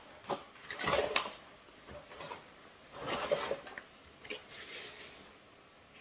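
Hiking backpack being packed by hand: fabric rustling and soft knocks of items going in, in a few separate bursts, with short ticks near the start and about four seconds in.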